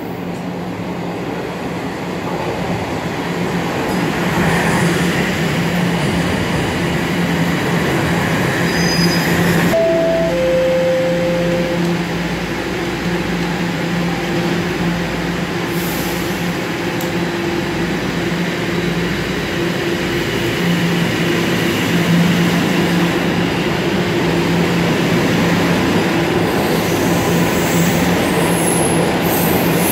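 A 2012 Bombardier Toronto Rocket subway train pulling into the station and then away again, its traction motors and wheels giving a steady low hum over a rolling rumble that grows louder over the first few seconds. A short two-note falling chime sounds about ten seconds in.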